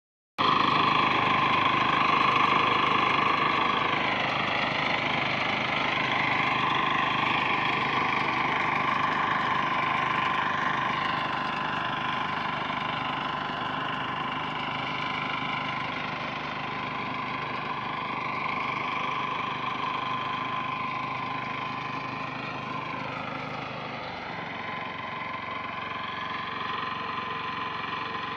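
A small combined rice and wheat harvester-thresher machine running steadily, its engine and threshing mechanism giving a strong high whine. The pitch of the upper whine dips and recovers twice.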